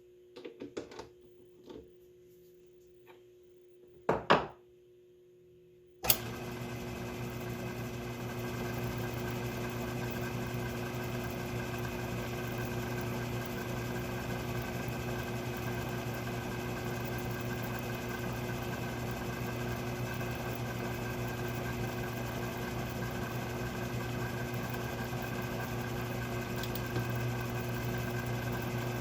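A few light clicks and knocks of handling, then about six seconds in a Myford ML7 lathe starts abruptly and runs with a steady motor hum and whine.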